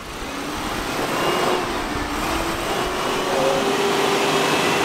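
Off-road 4x4's engine working under load: its revs climb over the first few seconds, then hold high and steady, over a broad rush of noise.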